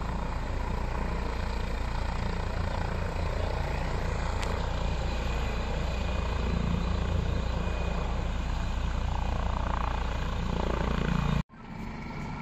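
Helicopter hovering low at lift-off, its rotor and turbine engines running loud and steady. Near the end the sound drops off abruptly and comes back fainter and more distant.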